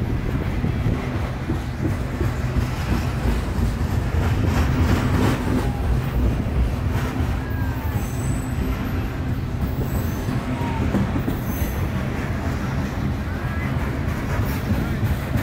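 Loaded coal hopper cars of a freight train rolling past in a steady, heavy rumble, with short high wheel squeals now and then.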